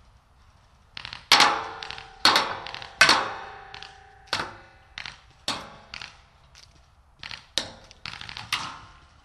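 Paintball gunfire: about a dozen sharp shots and hits in an irregular string, the loudest few seconds in, several with a short metallic ring after them.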